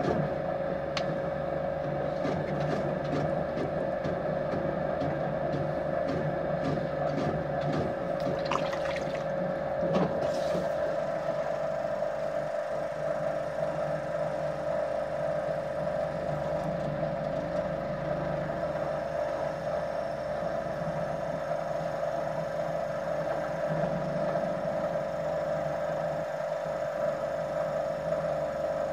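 Electric potter's wheel running with a steady motor hum. Over roughly the first ten seconds, light scratchy ticks from a wooden tool working the clay rim.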